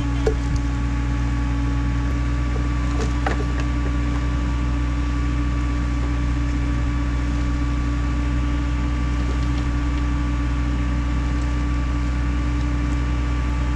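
Skid steer engine running at a steady speed, a constant drone with a few faint clicks and knocks.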